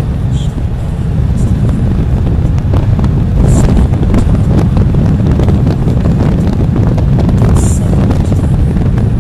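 Wind rushing and buffeting over the microphone of a trike motorcycle riding at cruising speed, with engine and road noise underneath.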